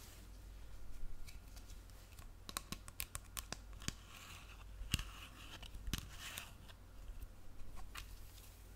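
Fingernails scratching close to the microphone: scattered sharp clicks and taps, with short rasping scratch strokes about four and six seconds in.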